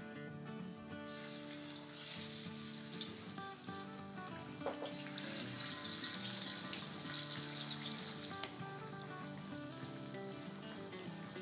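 Pieces of wet, besan-and-masala-marinated salmon sizzling as they are lowered into hot oil in a frying pan. The sizzle comes in about a second in, swells around two to three seconds, and is loudest from about five to eight seconds in. Soft background music underneath.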